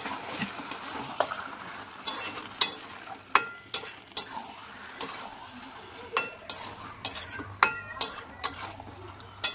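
Chicken pieces being stirred into sizzling spice paste in oil in a pan: a steady sizzle with irregular scrapes and clinks of the spatula against the pan, several of them ringing briefly.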